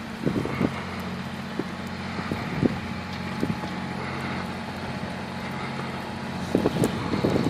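A vehicle engine running with a steady low hum, broken by scattered short thumps and knocks: a few in the first second, one or two in the middle, and a cluster near the end.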